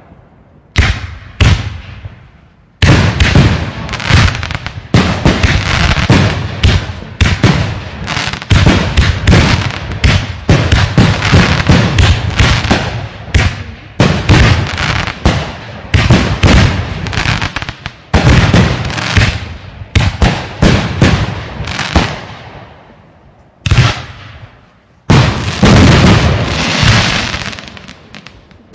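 Aerial fireworks bursting: two single bangs, then from about three seconds in a dense, near-continuous string of loud bangs and crackles, broken by a few brief lulls.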